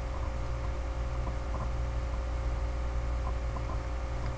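Steady low electrical hum with a faint, steady higher whine, and a few faint soft ticks scattered through.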